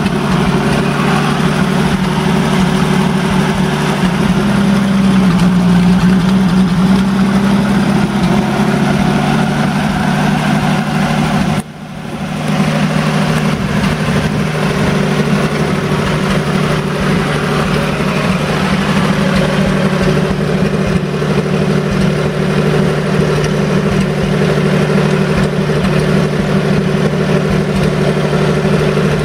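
Six-cylinder Ford flathead truck engine of a 1952 Funk-converted Ford tractor running steadily as the tractor is driven. The note rises a little about five seconds in and drops out briefly near twelve seconds.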